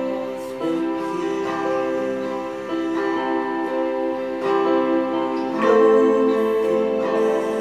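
Instrumental worship-song accompaniment: keyboard chords with an electric guitar, the chords changing every second or so and swelling loudest about six seconds in.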